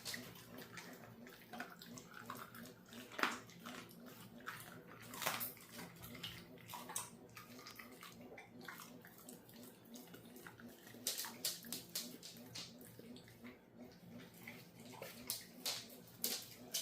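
Cane corso chewing raw bones: irregular sharp crunches and cracks, with a few louder cracks scattered through.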